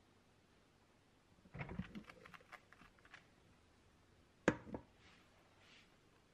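Small taps and clicks of a silicone spatula dropping dollops of whipped cream onto a sponge cake sheet, then a sharp knock about four and a half seconds in as a kitchen utensil is handled, followed by faint scraping as a metal offset spatula starts spreading the cream.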